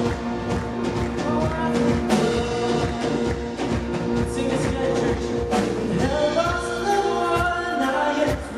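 A live worship band playing an upbeat rock-style song with a drum kit keeping a steady beat.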